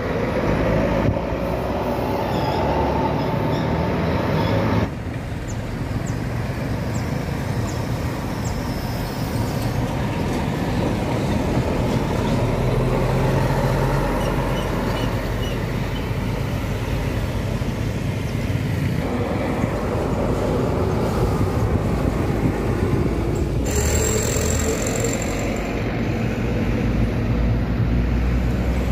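Diesel engines of large intercity coaches running as the coaches drive past one after another through a bend. The rumble changes abruptly about five seconds in and again near the end.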